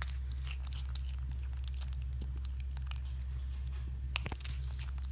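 Black-capped capuchin monkey chewing crunchy freeze-dried strawberry and banana pieces: scattered small crunching clicks, a few sharper ones about four seconds in, over a steady low hum.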